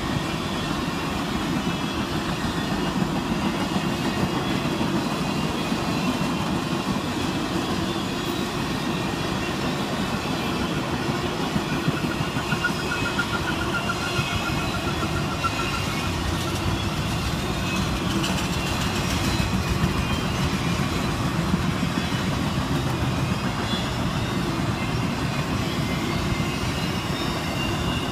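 Circus train's coaches and flatcars rolling past at steady speed: a continuous rumble of steel wheels on rail. A faint thin whine rises over it for a few seconds about midway.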